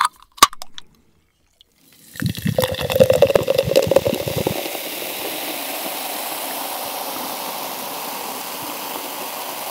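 A couple of sharp clicks from a Coca-Cola can's tab, then cola poured from the can into a glass mason-jar mug. The pour starts about two seconds in as an irregular glugging gush and, after a couple of seconds, settles into a steady fizzing hiss as the carbonated cola foams up in the glass.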